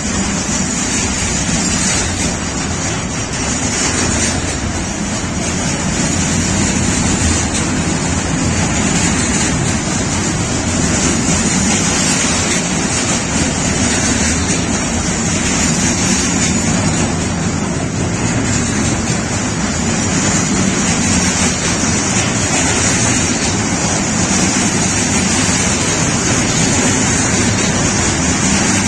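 Intermodal freight train of pocket wagons carrying road semi-trailers rolling past close by: a loud, steady rush and rumble of steel wheels on the rails.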